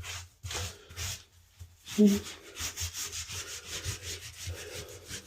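Rapid back-and-forth scrubbing and scraping at a toilet drain flange, clearing away old wax-ring residue, at about four strokes a second, with one sharp knock about two seconds in.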